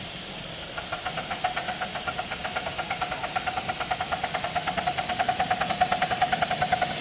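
Miniature live-steam locomotive chuffing in a rapid, even beat as it works toward the camera hauling riders, with a steady hiss of steam. The chuffs start about a second in and grow louder as it comes closer.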